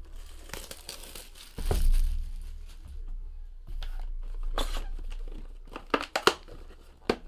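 Plastic shrink wrap crinkling and tearing as a sealed hobby box of trading cards is unwrapped and its cardboard lid opened, with a few sharp snaps near the end.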